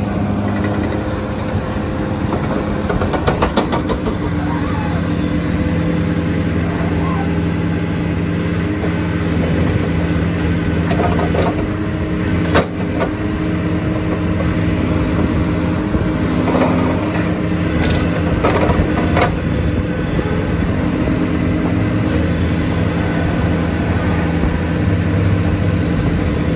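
Hitachi Zaxis 490 LCH excavator's diesel engine running steadily, with a few sharp metallic knocks, the loudest about halfway through.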